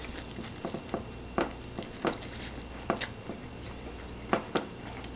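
A fork stirring and lifting instant ramen noodles in their cup. It makes about a dozen short, irregular taps and scrapes against the cup.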